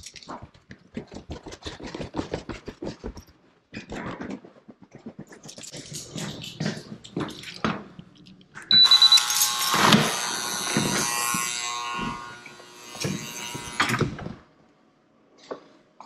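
Footsteps going down stairs, then a short electronic beep from a key-fob door reader about nine seconds in, followed by a loud rattling and clatter for about three seconds as the door is unlocked and opened, with keys jangling, and a few knocks after it.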